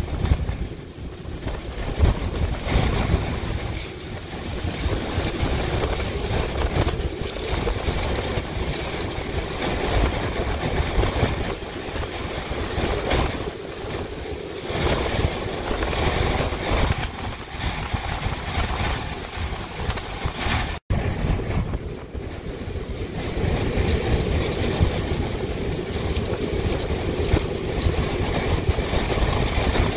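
Hurricane eyewall winds howling in gusts around a car, with wind-driven rain lashing against it. It is heard from inside the car, and the noise swells and eases as the gusts come and go.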